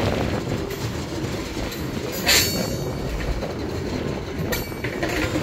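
Covered hopper freight wagons rolling slowly over rusty rails, their steel wheels rumbling and grinding steadily, with a brief, loud metallic burst about two seconds in and a weaker one near the end.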